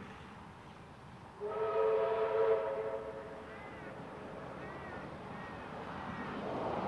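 Steam locomotive whistle blowing one steady blast of about a second and a half, a little over a second in, over the faint rumble of the approaching engines.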